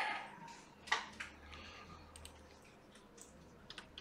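Computer keyboard being typed on: a few scattered, quiet key clicks, with one sharper click about a second in and a quick cluster near the end.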